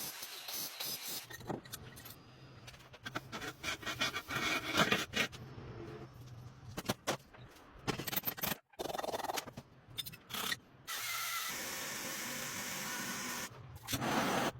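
Workshop hand-work sounds on parts of an old two-stroke motorcycle: tools and metal parts scraping and rubbing, with scattered clicks and knocks, in short segments that cut off abruptly. Near the end there is a steadier stretch of noise lasting about two seconds.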